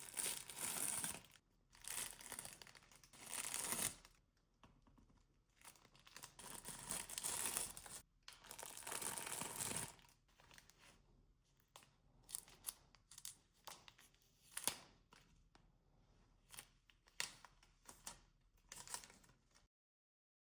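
Packaging being opened: several long tearing, rustling strokes, then scattered short crinkles and clicks. The sound cuts off suddenly near the end.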